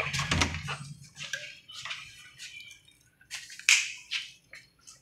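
A door being unlocked and opened by hand: scattered short clicks and rustles, with one louder scrape a little after halfway.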